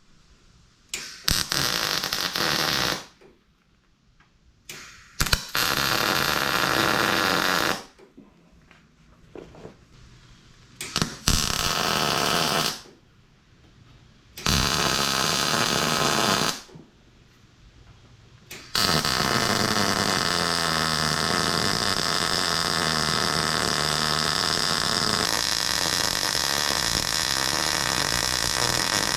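Electric arc welding on angle iron: four short welds of about two seconds each with pauses between, then one long steady weld through the last ten seconds.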